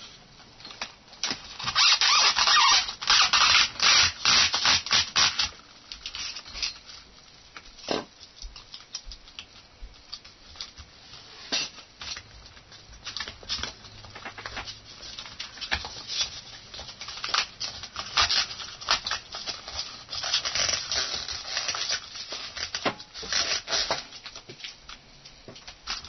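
Hands handling a plastic Android-figure robot and the phone and wires inside it: rubbing, scraping and small clicks, loudest for a few seconds near the start and again near the end.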